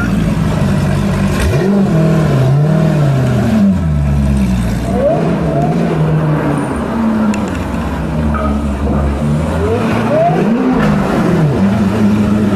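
High-performance car engine running hard under acceleration. The revs rise and drop sharply, twice near the start and once again around two-thirds through, as it shifts through the gears.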